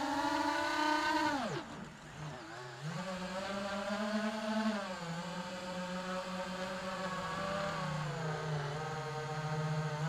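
iFlight Titan DC5 5-inch FPV quadcopter's motors and propellers whining, picked up by the onboard Air Unit. The pitch falls steeply about a second and a half in as the motors slow, stays low briefly, then climbs back about three seconds in and holds, with small dips later.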